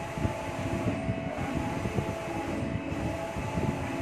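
Steady low mechanical rumble with a faint steady hum above it, no speech.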